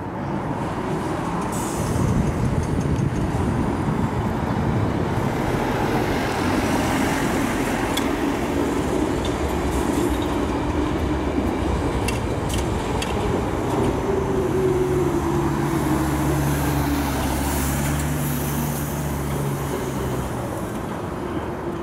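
Electric passenger train running along the platform, with a steady rumble, a run of sharp wheel clicks over rail joints, and a motor whine that falls in pitch midway as the train slows, joined by a steady low hum.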